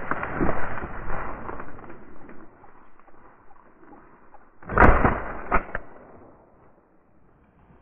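A rough rustling noise, then a single loud shotgun shot about five seconds in, followed by two sharp clicks.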